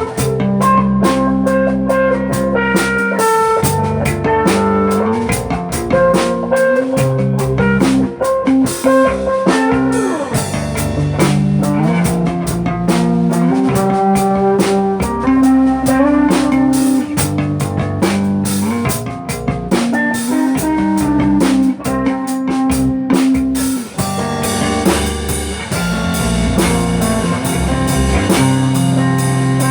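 A band playing a blues-rock song on guitar and drum kit.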